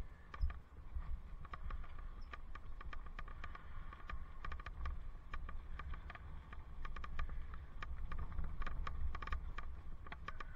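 Bicycle riding noise on a helmet camera: a steady low rumble of wind and road under many light, irregular clicks and ticks.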